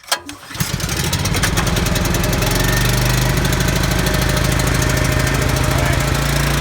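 Engine of a 389 cc Champion portable generator catching on a pull-start after a sharp knock and settling into a steady, loud run. It is a cold start, with the choke still on.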